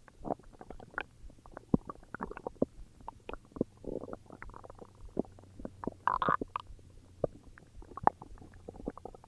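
Human stomach growling and gurgling: a dense run of small pops and bubbly clicks, with a longer gurgle about four seconds in and a louder, higher-pitched squealing gurgle just after six seconds.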